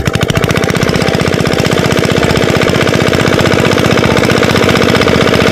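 Loud, steady, very rapid mechanical hammering, many strokes a second, that cuts off suddenly at the end.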